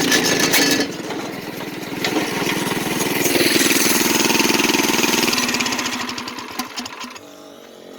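Small gasoline kart engine running. Its speed drops about a second in, picks up again and holds for a few seconds, then winds down and fades away near the end.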